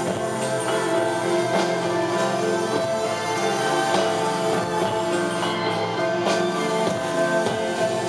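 Live piano-rock trio playing an instrumental passage: keyboard holding chords over bass guitar and drums, with a cymbal or drum hit about once a second.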